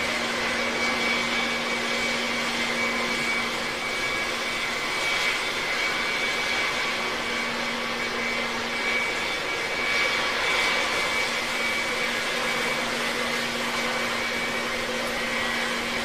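Jet aircraft in flight: a steady rush of engine and air noise with a constant low hum and a faint high whine.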